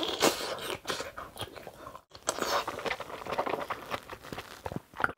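Close-miked eating sounds: a big mouthful of kimchi being bitten and chewed, with many small wet crunches and clicks. There is a brief dropout about two seconds in.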